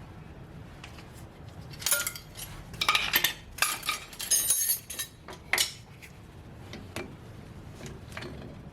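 Loose metal parts and hand tools clinking and rattling against each other in a few quick clusters between about two and six seconds in, with a few faint ticks after.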